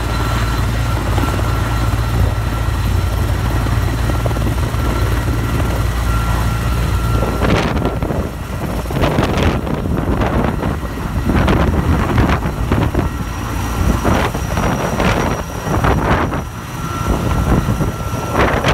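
Sikorsky S-64 Skycrane helicopter taking off: its turbines and rotor run with a steady low drone and a thin high whine, then, about seven seconds in, its rotor downwash starts buffeting the microphone in heavy irregular gusts as it climbs overhead.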